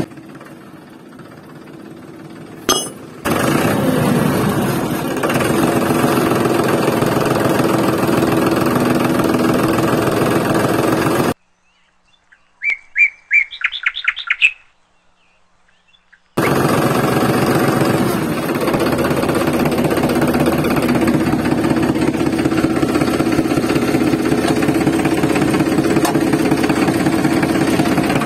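Steady engine-like running of a model tractor, which starts after a single click a few seconds in. In the middle it cuts to about five seconds of near quiet, in which a bird chirps several times in quick succession, and then the running sound comes back and holds steady.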